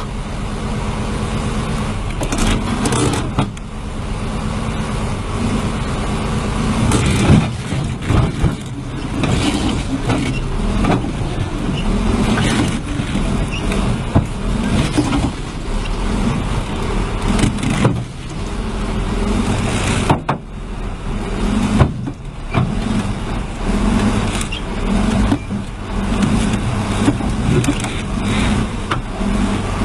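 Heavy equipment diesel engine running, swelling and easing as it works, with scattered knocks and clatter.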